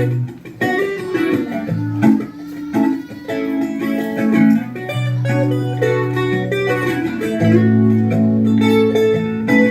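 Instrumental music led by guitar: plucked notes over long held bass notes.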